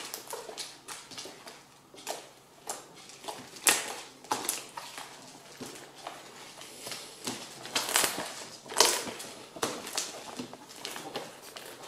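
Fluffy slime made from glue and shaving foam being squeezed, kneaded and stretched by hand, giving irregular wet clicks, squelches and pops for ASMR, the loudest pops about four, eight and nine seconds in.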